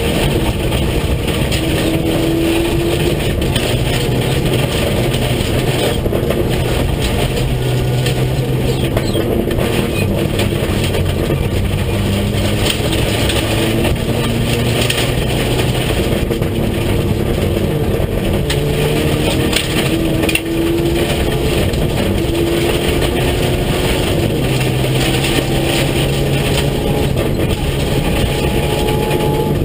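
Rally car engine heard from inside the cabin, pulling hard through the gears: its pitch climbs and drops back at each shift, again and again. Under it runs a steady rush of tyre and gravel noise from the loose road surface.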